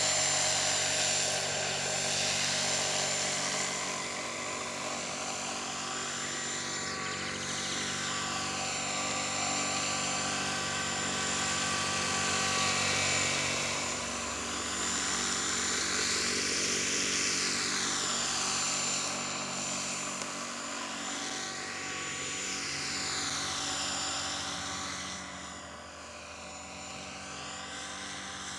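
Align T-REX 450 electric RC helicopter in an EC-135 scale body flying: the steady whine of its motor and gears over the rush of the rotor blades. The sound swells and fades in repeated sweeps as the model moves about, and it grows fainter near the end.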